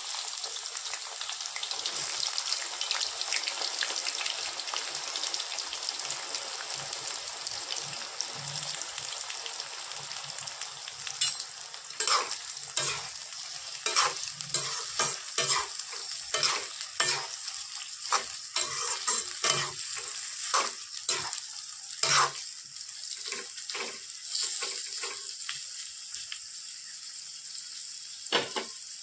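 Sliced onions sizzling in hot oil in an aluminium kadai. From about twelve seconds in, a metal slotted spoon stirs them, with many sharp knocks and scrapes against the pan over the frying hiss.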